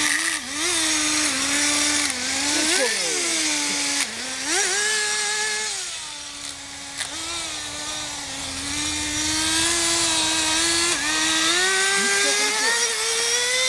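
Kyosho Blizzard RC tracked vehicle's .11 nitro glow engine running with a high buzzing note, its pitch rising and falling as it is throttled, then climbing steadily near the end.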